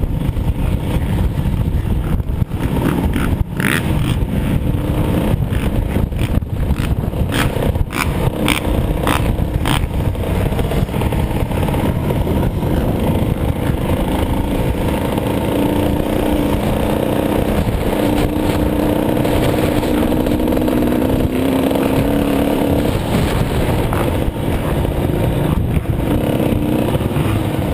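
85cc two-stroke motocross bike ridden slowly at low revs, heard from the rider's helmet with heavy wind rumble on the microphone. Several sharp ticks come in the first third, and the engine note holds steadier in the second half.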